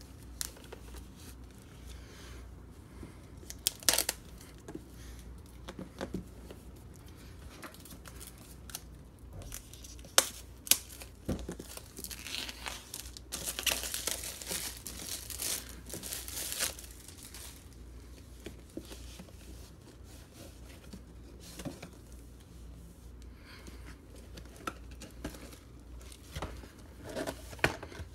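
Packaging being handled and opened: plastic and cardboard crinkling and tearing, with scattered sharp clicks and knocks. The rustling and tearing is densest from about twelve to seventeen seconds in.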